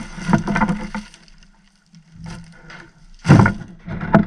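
Rummaging through farm supplies, with a plastic bag rustling and items handled, and a loud knock about three seconds in.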